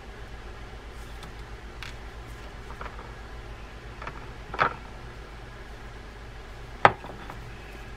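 Small screwdriver and baitcasting-reel parts being handled while a small washer is fitted: scattered light clicks and taps, two sharper clicks standing out about halfway through and near the end, over a steady low hum.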